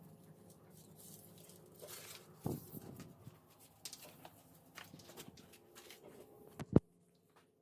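Sendaren kite hummer of mica sheet and gift ribbon being test-sounded: a faint, steady low buzzing hum with small scattered clicks. Near the end there is one sharp click, and then the sound cuts off suddenly.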